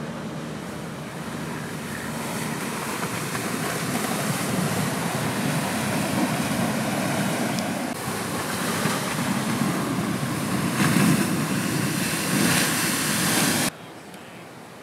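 Ocean waves breaking and washing against a rock ledge, with heavy wind noise on the microphone. The sound cuts off abruptly about a second before the end, leaving fainter surf.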